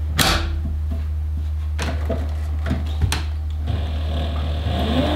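Tandy Stitchmaster Pro leather sewing machine over a steady low hum: three sharp clicks and knocks as the machine and leather are handled, then about four seconds in the motor starts running, its pitch rising and falling as the speed changes.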